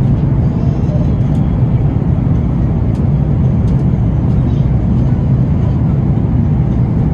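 Steady low rumble of an Airbus A330-900neo's cabin noise, the drone of its engines and the airflow past the fuselage, with a few faint ticks.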